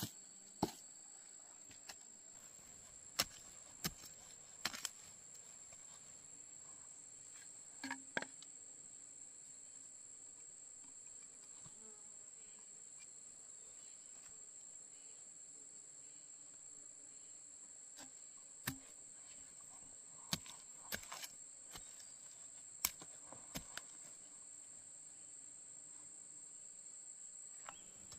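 Steady, high-pitched insect trilling, with scattered sharp clicks and knocks through it.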